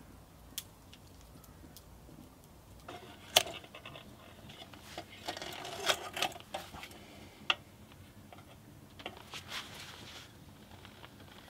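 Metal hurricane lantern being handled: irregular clicks, knocks and rattles of its wire frame and glass globe, with a few sharp louder clicks, starting about three seconds in and dying away near the end. Before that, only faint scattered ticks, as from a campfire crackling.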